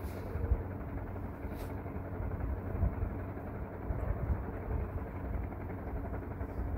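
Steady low rumble, like a motor or distant traffic, with a few faint light ticks.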